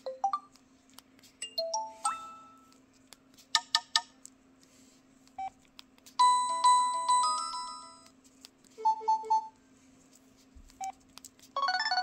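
Preloaded ringtones on an LG Revere flip phone previewed one after another through its speaker as the list is scrolled: short chimes and note blips, a ringing chime that dies away, a quick repeated two-note figure, then a busier melody starting near the end. A faint steady hum lies underneath.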